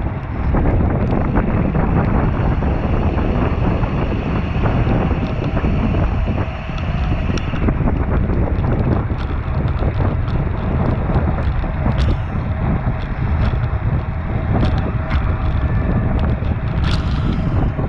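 Steady wind rushing over a bicycle-mounted action camera's microphone as a racing bike moves at speed. A few sharp clicks sound partway through and near the end.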